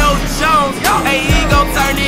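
Music with a heavy bass beat and a vocal line over it.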